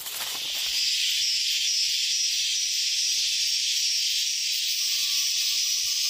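Steady, high insect chorus of the rainforest, setting in about a second in and holding level. Near the end a thin, steady whistling tone joins it.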